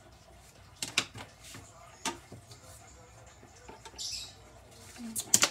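Colored pencil tapping and scratching on paper as small dots are coloured in, with a few sharp clicks and a louder pair of knocks near the end.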